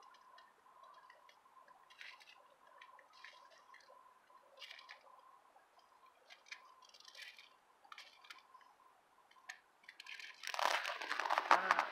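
Faint crunching steps on packed snow, irregular and a second or so apart. About ten and a half seconds in, loud rustling and crunching right at the microphone takes over.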